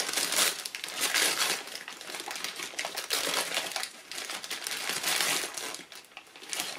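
Wrapping paper and tissue paper crinkling and rustling as a small present is unwrapped by hand, in irregular bursts with crackly clicks.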